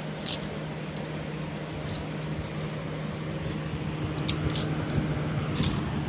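Steel chain handcuffs clinking and jingling as they are handled, in scattered short metallic clinks over a steady low hum.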